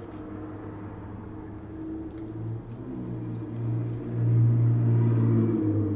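A low, steady motor-like hum with a layered pitch, growing louder about four seconds in before easing slightly near the end. A few faint ticks sit underneath.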